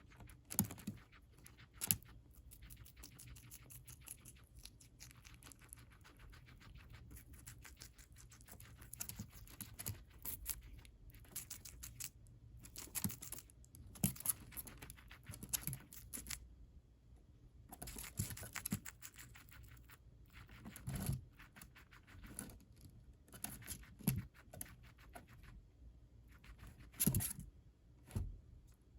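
Guinea pig chewing and tearing lettuce leaves: quick crisp crunching in bursts with short pauses, and a few louder snaps of leaf.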